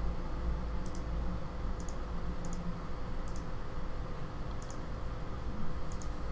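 Computer mouse button clicks. There are six short clicks, each a quick pair of ticks, spaced roughly a second apart over a steady low hum.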